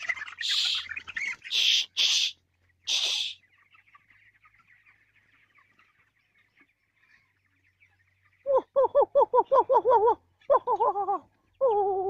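Broiler chickens in a poultry shed: a few short, loud hissing bursts in the first three seconds, then faint high peeping, and from about eight seconds in a loud, rapid run of wavering calls repeated several times a second.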